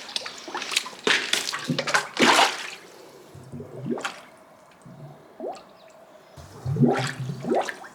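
Wet squelching and dripping of sewage waste being worked in a blocked drain manhole, in irregular bursts.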